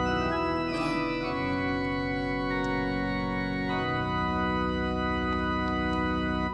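Organ playing slow, sustained chords, the harmony changing a few times.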